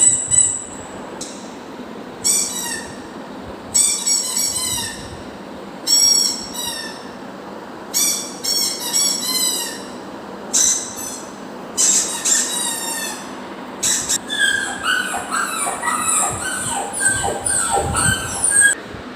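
A prank sound effect for dogs: clusters of high, squeaky chirps, each sweeping downward, about every two seconds. Near the end comes a faster run of chirps mixed with lower whistles.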